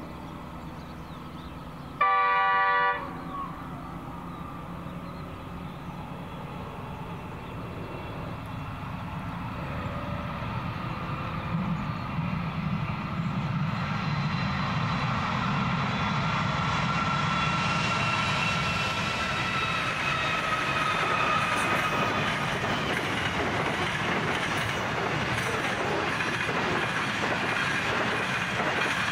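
A diesel freight locomotive's horn sounds once for about a second, the loudest thing here. Then the train's engines grow louder as it approaches and passes, giving way to the steady clatter of loaded steel wagons rolling over the rails.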